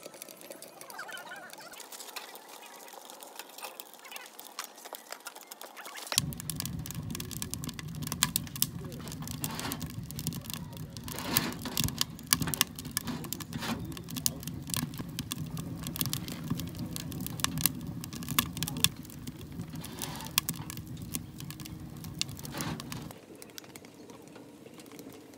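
Burning firewood crackling and popping inside a homemade sheet-metal camping wood stove, many sharp irregular snaps. From about six seconds in until shortly before the end a steady low rumble sits under the crackling, then it drops back to quieter scattered pops.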